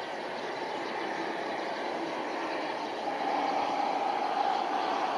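Engines of a twin-turbofan Embraer E175 regional jet on final approach with its gear down, a steady jet rumble with a whine in it that grows louder about three seconds in as the aircraft comes closer.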